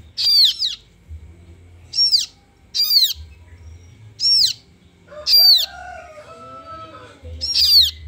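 Kaso-kaso chicks calling: about six loud, high chirps, each swooping downward in pitch, spaced one to two seconds apart.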